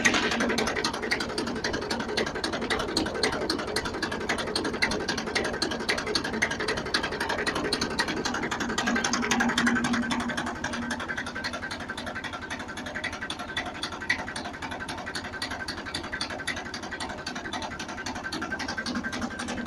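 Homemade chain-transporter potato harvester running empty off a tractor's PTO, its transporter chain, chain drive and gearbox clattering in a fast, steady stream of clicks, with the engine hum underneath; it runs without fault. The clatter eases off a little about halfway through.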